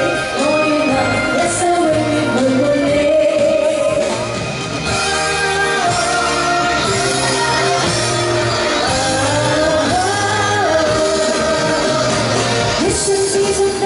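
A woman singing a Cantopop song live into a microphone, amplified, over pop music accompaniment with a steady beat.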